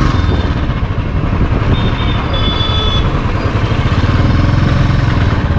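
Royal Enfield Bullet 350's single-cylinder engine running steadily as the motorcycle is ridden along at low speed, heard from the rider's seat.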